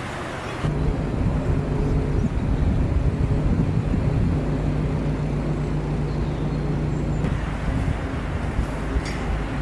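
An engine running steadily with a low, even hum, coming in suddenly about a second in.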